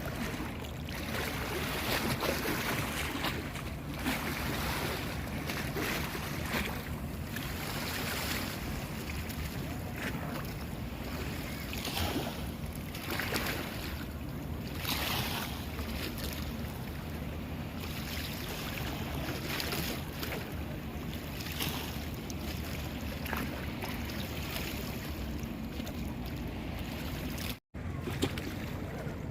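Strong sandstorm wind gusting and buffeting the microphone in a steady rushing roar that swells and eases. A brief dropout near the end, where one clip cuts to the next.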